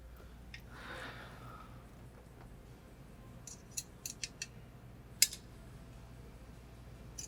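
Small hard parts of a fire extinguisher bottle and its mounting bracket being handled and shifted: a soft rustle, then a quick run of about five light clicks and one sharper, louder click a moment later.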